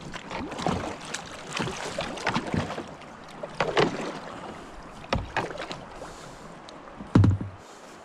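Kayak paddle strokes: the blades dipping and splashing in the water and dripping, with scattered light knocks. A louder, deeper thump comes about seven seconds in.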